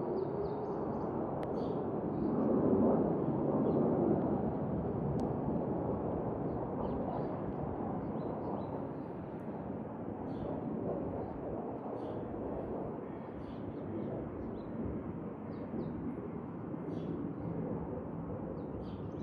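Distant air-raid siren wailing, its rising and falling tone blurred by echo and loudest a few seconds in, with small birds chirping faintly.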